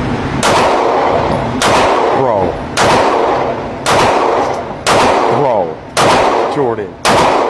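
Seven gunshots fired one at a time, a little over a second apart, each followed by a long ringing echo.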